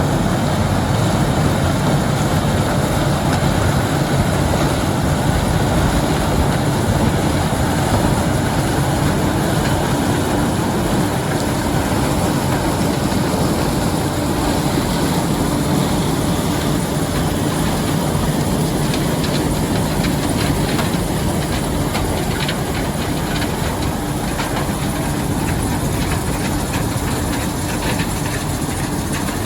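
White 7300 combine harvesting corn: a steady engine drone under a dense rattle of the running machinery, easing off slightly about halfway, with fine clicking in the second half.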